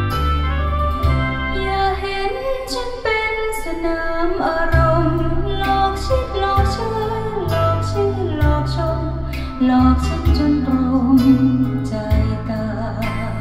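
Recorded song with a singer over instruments and a deep bass line, played back through hi-fi loudspeakers driven by a single-ended 300B valve amplifier.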